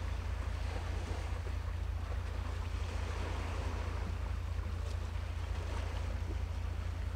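Wind buffeting the microphone with a steady low rumble, over an even wash of seaside ambience.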